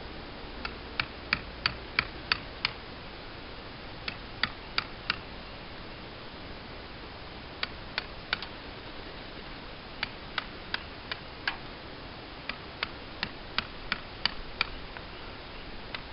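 Hammer striking a chisel as it carves into a wooden totem pole: sharp taps in runs of three to seven, about three a second, with short pauses between the runs.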